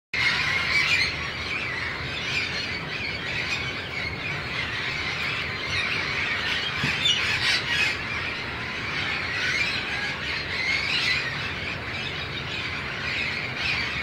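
A large flock of wild parrots calling all at once: a dense, continuous chorus of overlapping shrill squawks.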